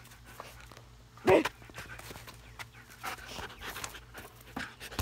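A dog panting excitedly, with one short, much louder sound just over a second in.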